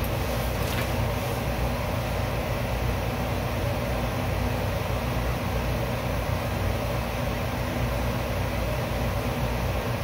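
Steady low background hum and hiss that does not change, with a faint rustle of fabric being handled about half a second in.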